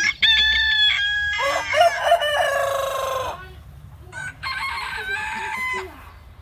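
Rooster crowing: one loud, drawn-out crow over the first three seconds, then a second, quieter crow about four seconds in.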